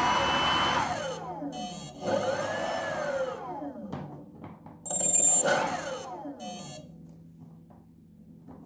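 BLDC motor spinning the 3D-printed turbine fan. It runs at speed, then its whine falls as the throttle is cut about a second in. It is revved twice more, each time a whine that rises and falls away, before winding down with a few faint ticks.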